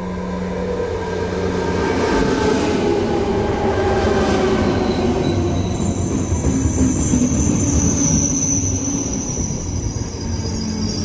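ČD class 471 CityElefant electric multiple unit pulling into the station and slowing, its whine falling in pitch as it draws past. A high squeal sets in about six seconds in as it brakes.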